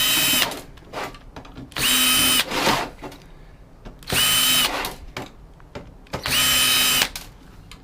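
Power drill-driver running in four short spurts, about two seconds apart, with a steady high whine in each, backing out screws while a telecom module is taken apart. Light clatter follows between spurts.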